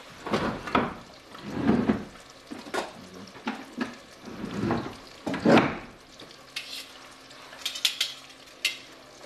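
Crappie fillets frying in hot oil in a pot on the stove, a steady sizzle with several louder bursts of bubbling and clatter. Near the end come a handful of sharp metal clinks from tongs against the pot.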